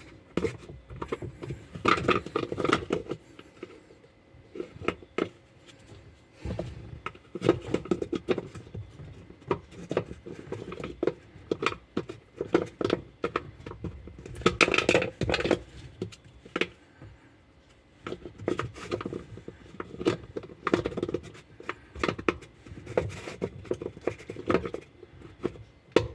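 Irregular clinks, knocks and scrapes of hard washing-machine parts being handled and set down, with short pauses between bursts of handling.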